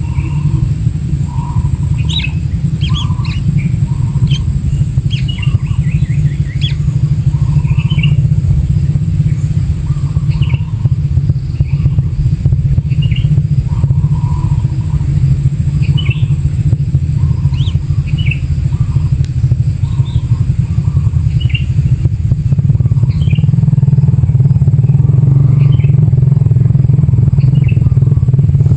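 A steady low motor drone that grows louder in the last few seconds, with short, scattered bird chirps over it.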